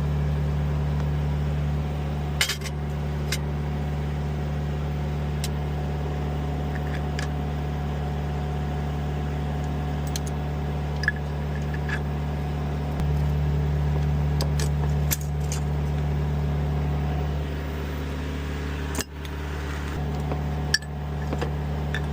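Scattered sharp metallic clinks and taps of wrenches and bolts while the A/C receiver-dryer is unbolted, over a steady low engine hum.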